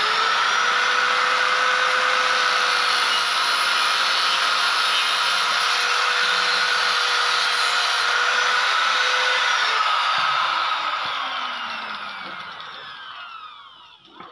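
Electric angle grinder running at full speed, its disc cutting through a thin metal broom-handle tube with a steady whine and hiss. About ten seconds in it is switched off and the whine falls away slowly as the disc spins down.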